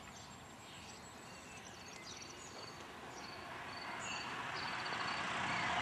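Outdoor rural ambience: small birds chirping and a high, pulsing trill over a faint background hiss that grows louder toward the end.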